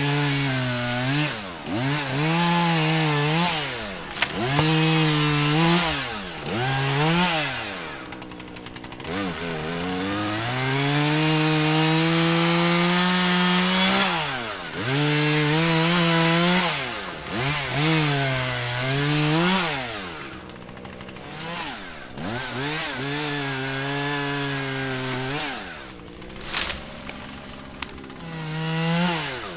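Chainsaw engine repeatedly revving up and falling back as it cuts, its pitch climbing and dropping every second or two, with a longer steady full-throttle run in the middle and a couple of brief drops toward the end.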